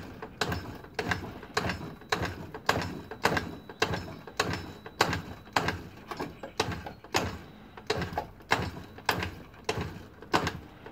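Kymco Super 9 two-stroke scooter being kick-started over and over, a sharp clack with each kick about twice a second. The engine never fires: it will not start after standing unused for about three years.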